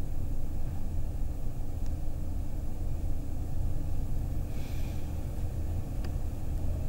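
A steady low rumble with no speech, with a few faint clicks.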